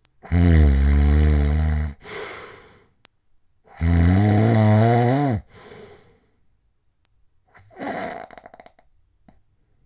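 Very loud snoring of a man with sleep apnea: two long, loud, deep snores, each followed by a softer breath, then a shorter, fluttering snore near the end.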